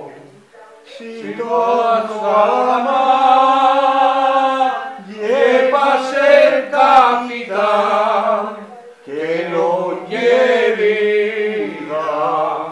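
Men singing a traditional Asturian folk song unaccompanied, in long drawn-out phrases with slightly wavering held notes and brief breaks for breath.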